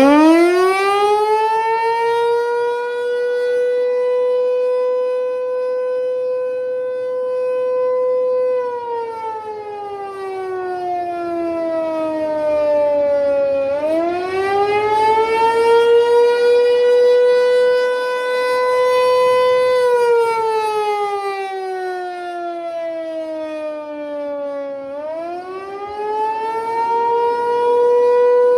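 American Signal T-128 electromechanical outdoor warning siren winding up from a standstill and sounding a wail. The single tone climbs quickly to a high steady pitch, holds for several seconds, slides slowly down, then climbs again, twice over. This rising and falling wail is the attack signal.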